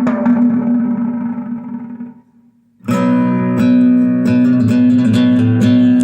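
Recorded music with plucked guitar and a strong bass line, played through AAD 260 loudspeakers driven by a Harman Kardon HK 3490 receiver. A chord rings out and fades, there is a brief pause about two seconds in, and then the music comes back with a steady, heavy bass.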